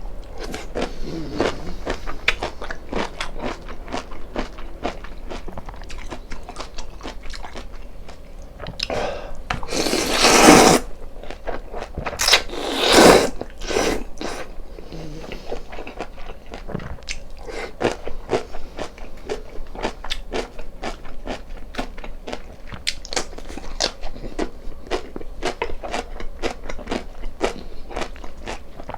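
Close-miked eating: steady chewing with many small wet mouth clicks, broken by two loud slurps of spicy noodle soup, about ten and thirteen seconds in.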